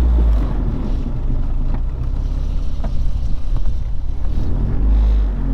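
Honda del Sol being driven, heard as a steady low road and drivetrain rumble with a few faint short scrapes: the new noise the occupants take for a brake rotor hitting something.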